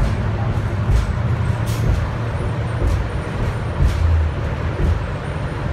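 Cabin noise inside a 2000 Neoplan AN440A transit bus under way: a steady low rumble of engine and road with a hiss of tyre and wind noise over it, and a few brief rattles.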